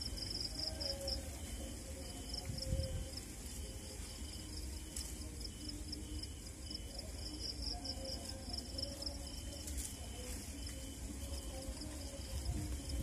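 Crickets chirping in quick, evenly repeated high pulses, several insects overlapping, over a low rumble.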